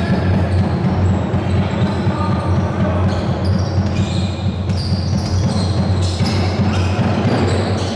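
Basketball bouncing on a hardwood court during live play, over a loud steady low hum that cuts off near the end.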